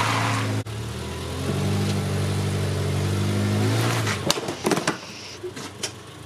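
Subaru Forester's flat-four engine idling with a steady tone. It breaks off sharply under a second in and returns. A little after four seconds the engine sound ends and a few sharp clicks and knocks follow.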